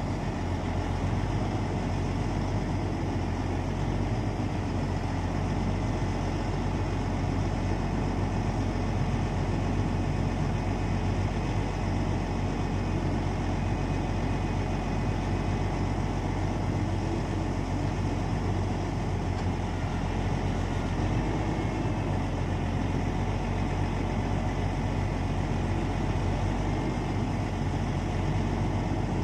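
Log truck's diesel engine running steadily, powering its hydraulic self-loader crane as logs are lifted off the load.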